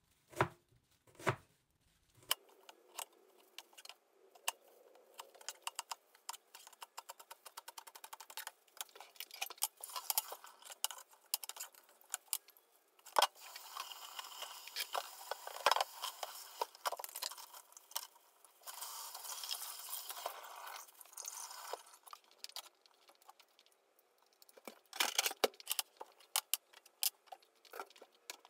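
Kitchen knife cutting ginger and scallions on a plastic cutting board in many quick, irregular taps. Partway through, a kitchen tap runs while the board is rinsed in the sink, and a few more knocks come near the end.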